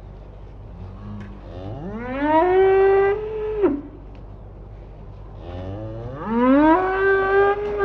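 Cattle mooing: two long moos, each rising in pitch and then held steady, the second starting about four seconds after the first.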